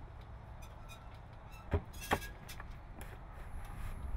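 Two sharp vinyl knocks close together about two seconds in as a vinyl gate upright is pushed onto the rail ends, over a steady low rumble.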